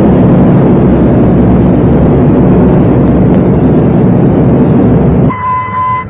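Engines of a line of Boeing B-29 bombers running, the Wright R-3350 radial piston engines making a loud steady rumble that cuts off sharply about five seconds in.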